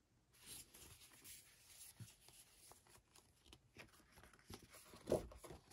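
Faint paper rustling and soft handling noises as a page of a spiral-bound desk calendar is turned over, with a louder rustle about five seconds in.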